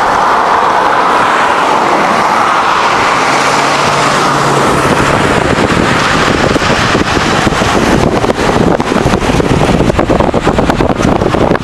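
Fast floodwater current rushing in a steady loud hiss. From about halfway through, wind buffets and crackles on the microphone.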